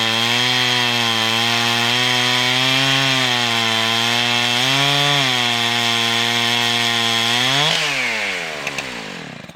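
Two-stroke chainsaw on a chainsaw lumber mill ripping lengthwise through a log, running steadily under load with slight dips in speed. Near the end it revs up briefly as the cut finishes, then winds down and stops.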